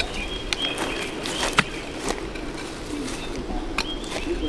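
Birds calling in short, high chirps, with a few sharp clicks in between.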